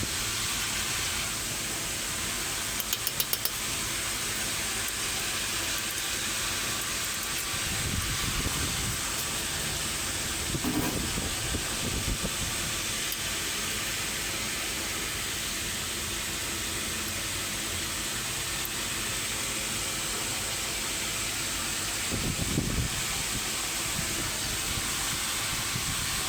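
Steady hiss with a quick run of clicks about three seconds in and a few dull knocks later on.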